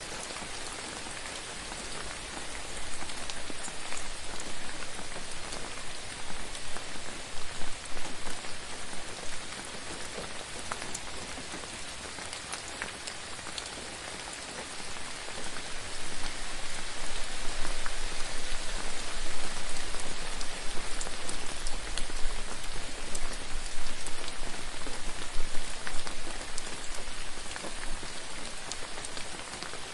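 Gentle rain falling steadily, an even hiss of rainfall with separate drops ticking through it. It grows louder for a few seconds early on and again for a longer stretch in the second half.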